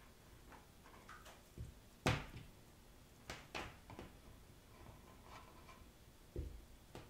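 A handful of soft knocks and taps from hands handling raw sausage links and cooking string on a wooden cutting board. The loudest knock comes about two seconds in.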